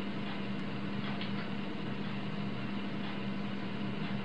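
Steady low hum with a faint even hiss: the background noise of the recording, with no speech over it.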